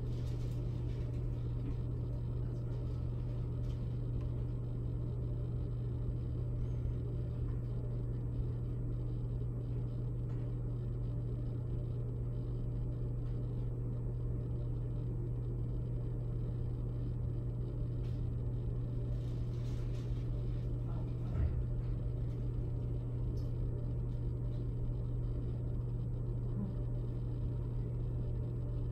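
A steady low hum that does not change, with one faint soft knock about two-thirds of the way through.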